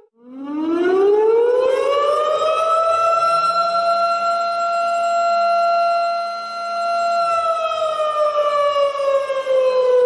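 Civil defense disaster-warning siren sounding one long wail. It starts just after a brief break, rises in pitch over about three seconds, holds a steady note, then slowly falls from about seven seconds in.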